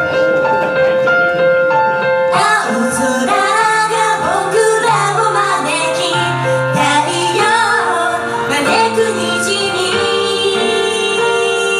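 Japanese idol-pop song starting. A sparse keyboard intro of held notes lasts about two seconds, then the full backing track comes in with female singing.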